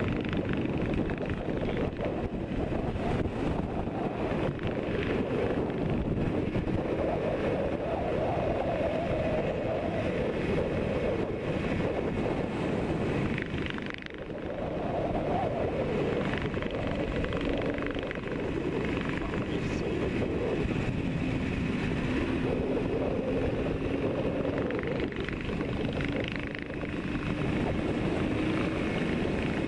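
Yamaha RD400 air-cooled two-stroke twin running on the road, heard with heavy wind rush at speed. The sound drops briefly about halfway, and in the second half a faint engine note slowly rises in pitch.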